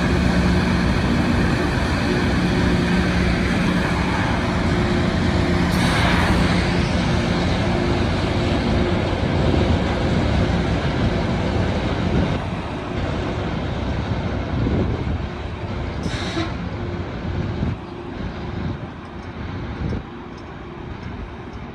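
Loram rail grinder grinding the rail as it runs past: a loud, continuous grinding rush over a steady engine hum, dropping off after about twelve seconds and fading as the machine moves away.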